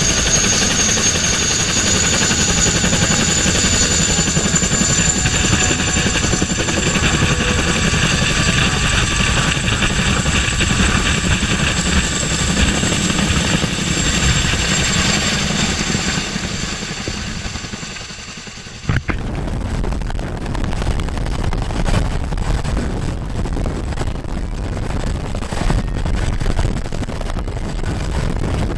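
Boeing CH-47 Chinook tandem-rotor helicopter close by: a steady high turbine whine over the rotor noise as it lifts off, fading as it flies away. After a sudden cut about two-thirds through, another Chinook hovering, with low rotor noise and no high whine.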